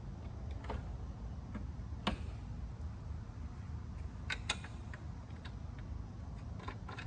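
Scattered light clicks and taps of plastic trim clips being handled and pressed into place on a Toyota Tundra's radiator support panel, sharpest about two seconds in and twice in quick succession around four and a half seconds. A steady low hum runs underneath.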